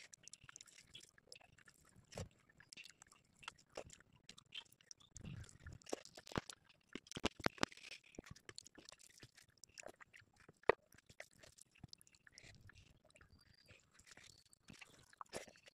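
Close-up eating sounds of rice and curry eaten by hand: soft chewing and mouth smacks, with fingers scraping across a steel plate. Scattered small clicks, and one sharper tap about two-thirds of the way through.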